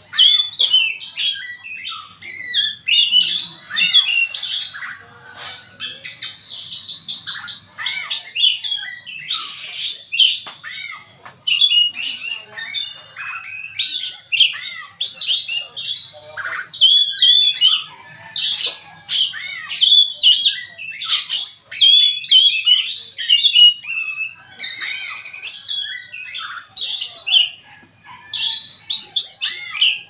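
Oriental magpie-robin (kacer) singing without a break: varied whistled phrases and quick trills follow one another closely, with a buzzing trill about six seconds in.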